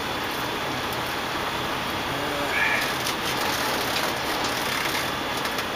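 Steady noise of a semi-truck with its engine running, heard from the cab, with a brief short chirp about two and a half seconds in.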